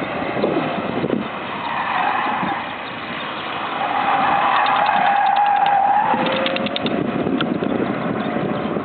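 Subaru WRX STI (VAB) engine revving hard through a gymkhana course, its pitch rising and falling as the car accelerates and slows for turns. It is loudest and holds a high note for a couple of seconds about midway, then drops.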